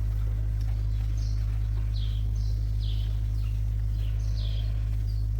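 Small birds chirping repeatedly in short, falling calls over a loud, steady low rumble.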